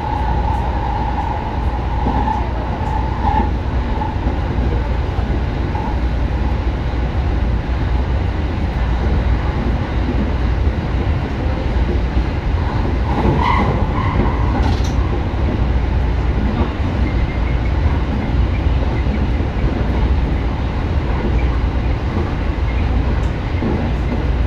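Electric commuter train running at speed, heard from inside the front car: a steady low rumble of wheels on rail, with a faint whine that fades in the first few seconds and a few short sharper noises around the middle.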